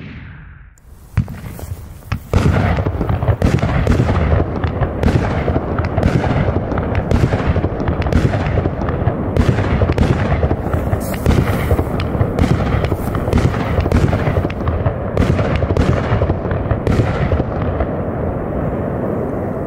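Blackboxx Vogelschreck salute battery, a 16-shot cake of 15 mm titanium salutes, firing: a first bang about a second in, then from about two seconds in a dense run of loud sharp bangs over a continuous low rumble, lasting nearly twenty seconds.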